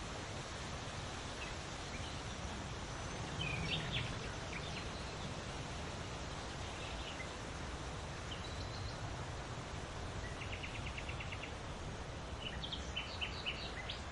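Steady wind noise with small birds chirping now and then, including a short rapid trill about ten seconds in.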